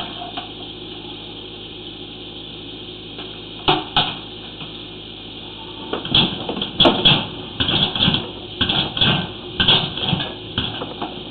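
Sewer inspection camera's push cable being fed down the line: two knocks about four seconds in, then from about six seconds a run of irregular knocks and scrapes, several a second, over a steady low hiss.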